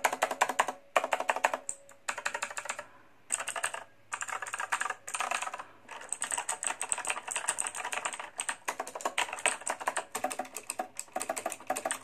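Fast typing on a Zebronics Max Pro full-size mechanical keyboard: rapid runs of sharp key clicks, broken by several short pauses.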